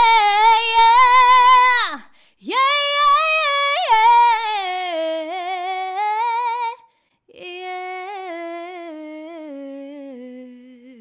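A woman singing unaccompanied melismatic vocal runs in three phrases, the pitch stepping and wavering quickly through each. The first two phrases are loud, and the third, from about seven seconds in, is softer and slides down in pitch.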